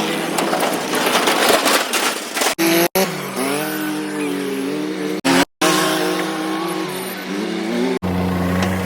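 Vehicle engines revving, their pitch rising and falling, in a string of short clips cut off abruptly one after another; a steadier engine note takes over near the end.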